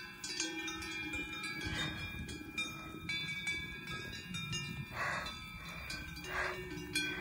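Several cowbells on grazing cattle ringing irregularly, their different pitches overlapping.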